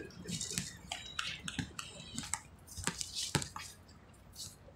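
A basketball bouncing on an outdoor hard court: a few sharp knocks, the loudest about three and a half seconds in, among the scuffing footsteps of players running.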